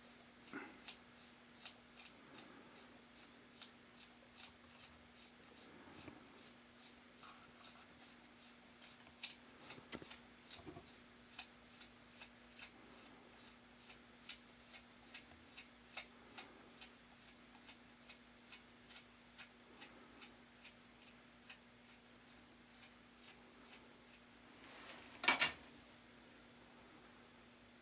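Faint, short scraping ticks, about two a second, as a thin hand tool is drawn over the damp clay wall of a coil-built tea bowl to smooth the outside, with one louder scrape near the end.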